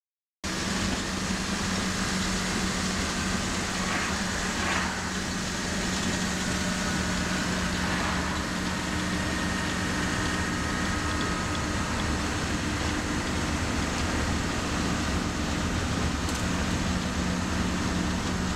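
Bus engine and road noise heard from inside the cabin while driving: a steady drone with a constant low engine hum. It starts abruptly about half a second in.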